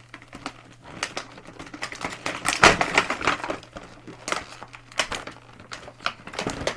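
Plastic packaging crinkling and small plastic items clicking and knocking together as a slime kit's contents are handled, in irregular bursts with a louder flurry about two and a half seconds in.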